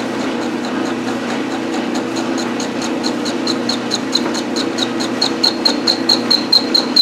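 Metal lathe running with the tool taking a cut on a bent bar of unknown metal: a steady machine hum with a regular high-pitched tick about five times a second that grows louder over the second half.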